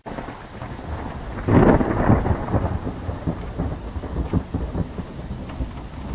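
Thunderstorm with rain: a clap of thunder about a second and a half in, which rolls on as a rumble for a couple of seconds, over steady rain.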